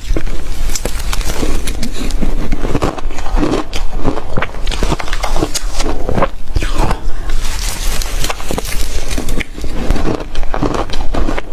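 Mouth chewing and crunching shaved ice close to the microphone, a dense run of irregular crunches.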